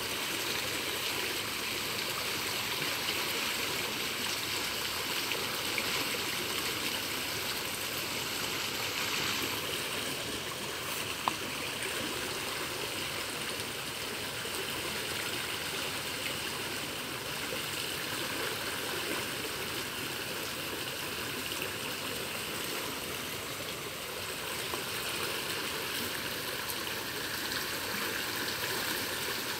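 A river's current flowing steadily, the water swirling past a snag of branches at the bank.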